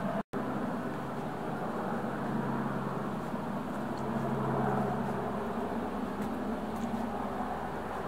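A steady mechanical drone with a constant low hum. The sound cuts out for an instant just after the start.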